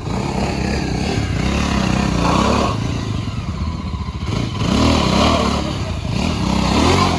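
Motorcycle engine running under load, its revs rising and falling in three throttle bursts: about two seconds in, around five seconds, and near the end.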